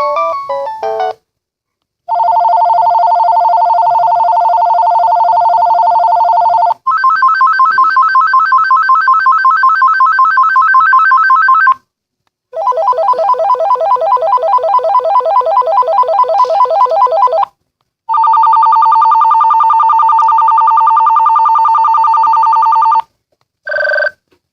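VTech cordless phone handset playing its ringer tones one after another. A short melody is followed by four loud electronic warbling trills of about five seconds each, with brief silences between them, and then short repeated beeps near the end.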